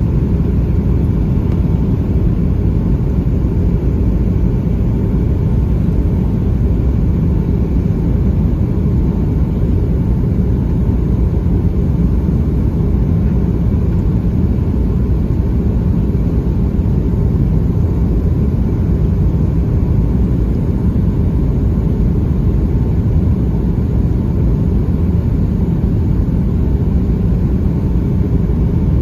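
Steady in-cabin noise of a Boeing 757-200 in flight, heard from a rear window seat: a low, even rumble of engine and airflow with faint steady tones above it.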